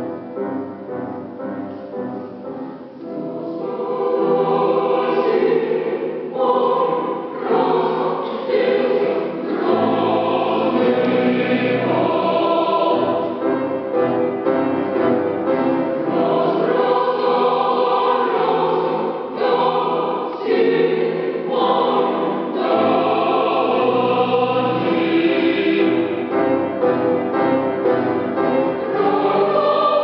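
Choir singing a cappella-style choral music, starting softly and swelling to full voice about four seconds in, with deep bass lines beneath.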